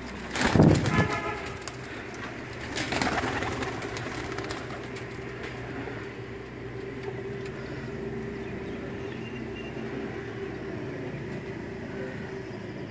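Pigeons cooing steadily in a loft, with two short loud bursts of noise, about half a second and about three seconds in.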